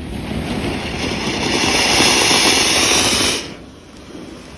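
Ground fountain firework (anar, or flowerpot) hissing loudly as it sprays sparks, growing louder and then cutting off suddenly about three and a half seconds in.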